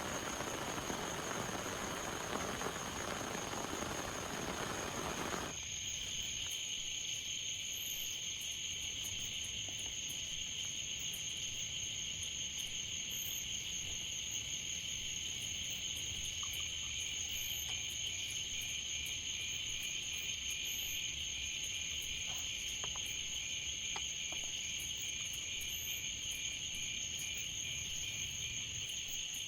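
Steady rain hiss that cuts off abruptly about five seconds in, giving way to insects chirping steadily in high, even tones, one with a fast pulsing trill.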